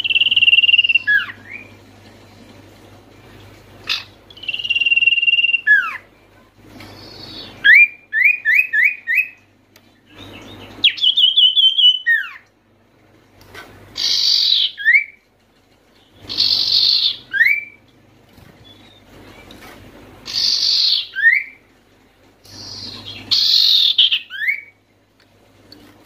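Common iora (sirtu/cipoh) calling in a series of loud whistled phrases, most a held whistle or a short chatter that ends in a quick falling note. A fast run of four or five repeated notes comes about 8 s in.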